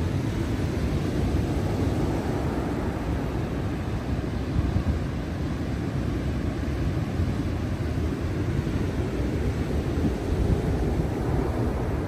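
Rough, storm-driven ocean surf crashing and rushing onto the beach as a steady low rumble, with wind on the microphone.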